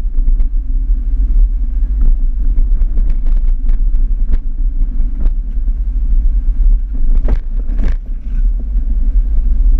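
4WD driving slowly along a rough dirt track, heard from inside the cabin: a steady low rumble with scattered clicks and knocks as it goes over bumps, and two louder knocks in quick succession about three-quarters of the way through.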